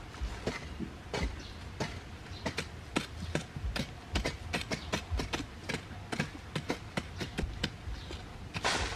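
Bamboo-handled digging blades striking and chipping into hard, dry earth, irregular knocks a few per second from two diggers working at once. Near the end there is a brief rush of loose soil being scraped aside.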